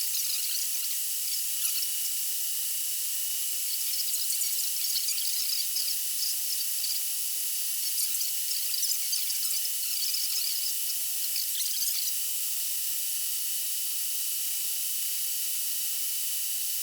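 Chevrolet 5.3-litre V8 of a 2009 Tahoe running at operating temperature: a steady mechanical whir with faint, irregular light ticking. The engine is running well, with no pronounced lifter tick.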